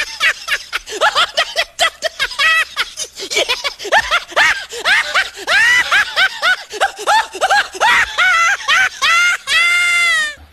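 Hysterical high-pitched human laughter, fast cackling that ends in one long held shriek near the end.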